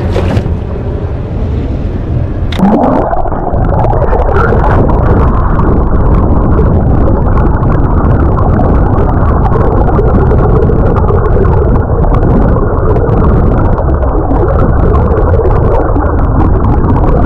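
A camera plunges into the water with a splash about two and a half seconds in, then picks up muffled underwater rumbling and gurgling of the water, with everything above a low pitch cut away.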